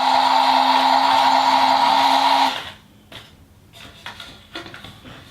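Small electric motor and plastic gears of a battery-powered toy dump truck whirring steadily, then stopping abruptly about two and a half seconds in; faint small clicks and taps follow.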